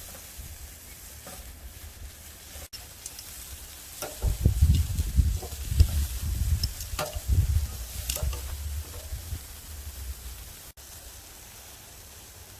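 Lamb kofta sizzling over a hardwood and charcoal fire, with crackling pops. A louder stretch of sizzling and crackle with a low rumble runs from about four seconds in to about ten.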